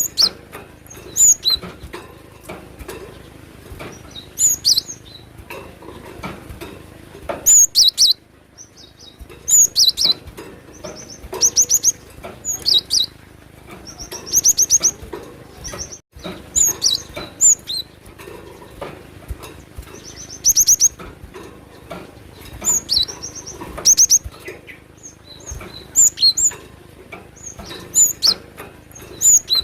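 Cinereous tit (glatik batu) singing: short, high-pitched phrases of quickly repeated notes, coming every second or two with brief pauses between them.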